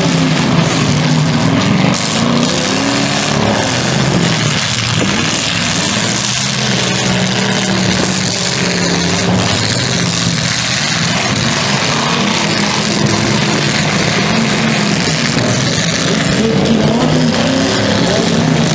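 Engines of several full-size demolition derby cars revving hard at once, their pitches rising and falling over each other. A few knocks of car-on-car impacts come in the first couple of seconds.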